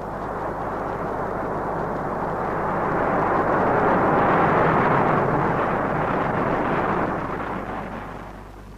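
Space rocket's engines at liftoff: a steady rushing noise that swells to its loudest about halfway through and fades away near the end.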